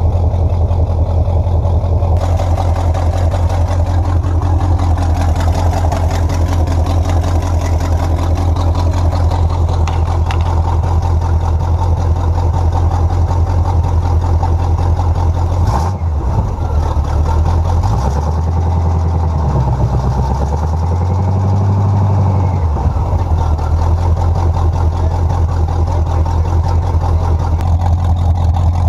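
Chevy small-block V8 running at a steady idle. About halfway through, it stumbles briefly, then is revved up and down a couple of times before it settles back to idle.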